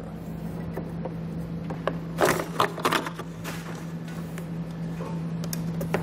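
Wiring harness and pull tubing handled and drawn through the vehicle body: light rustling with scattered short clicks and a cluster of knocks around the middle, over a steady hum.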